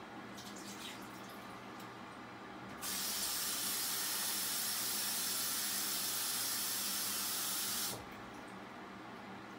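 A water tap turned on, running for about five seconds as a steady hiss, then turned off abruptly.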